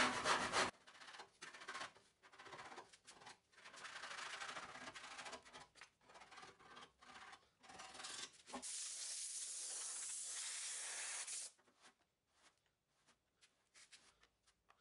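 Hand sanding of cured body filler on a car fender: short, uneven scraping strokes of a sanding block that come and go. About eight seconds in, a steady hiss of compressed air, typical of a blow gun clearing the sanding dust, runs for about three seconds and cuts off suddenly.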